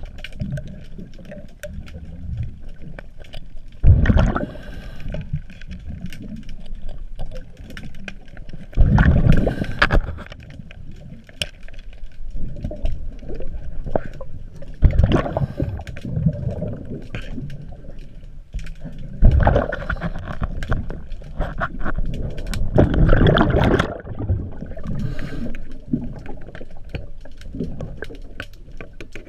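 Scuba diver breathing through a regulator underwater: a loud rush of exhaled bubbles every four to five seconds, with quieter breathing noise and small sharp clicks and knocks in between.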